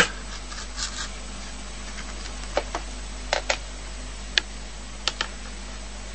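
A hamster gnawing on a wooden pencil: scattered sharp, dry clicks and crunches, several in quick pairs, the loudest right at the start.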